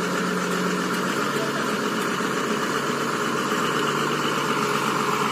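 Truck engine running steadily at low revs, its hum dropping slightly in pitch about a second in.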